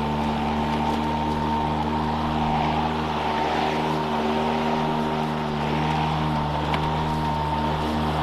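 Toro 60V Flex Force battery lawn mower running under load while cutting grass: a steady electric motor hum under a high, even-pitched whine from the spinning blade.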